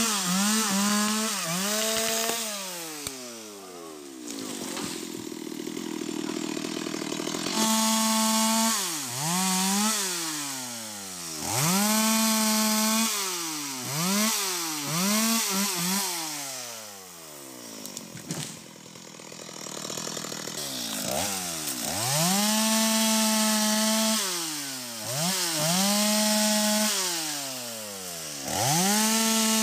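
Stihl MS 250 two-stroke chainsaw cutting into the base of a sengon trunk. The engine revs up to full throttle and drops back over and over, every second or two, with a couple of brief spells at lower revs.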